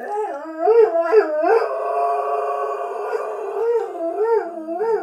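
Dalmatian howling at the TV: a long howl whose pitch swoops quickly up and down, holds steady for a couple of seconds in the middle, then wavers again near the end.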